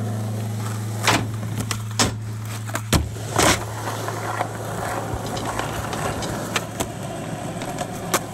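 Skateboard rolling on concrete, its wheels giving a steady rumble, broken by several sharp clacks and knocks of the board, the loudest about three and a half seconds in.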